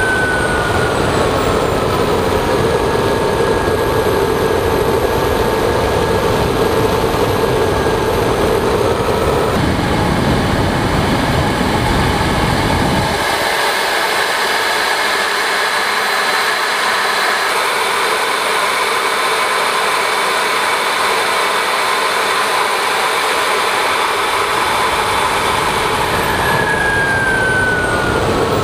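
Onboard sound of a CARF J10 RC jet in flight: the engine's steady whine, its pitch falling near the start and rising again near the end, over a heavy rush of wind on the onboard microphone whose low rumble drops away about halfway through.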